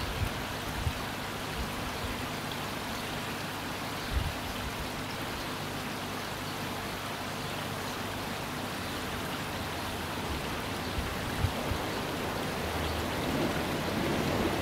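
Steady hiss of trickling, splashing water, with a few soft low thumps and a slight swell near the end.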